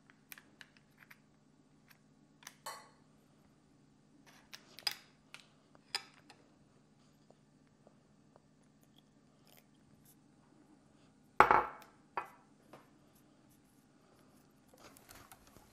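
Scattered clinks and knocks of a knife, wire whisk and glass measuring cup against a glass mixing bowl and plate, the loudest knock about eleven and a half seconds in, over a faint steady hum. Near the end a soft rustle of the whisk stirring the pancake batter.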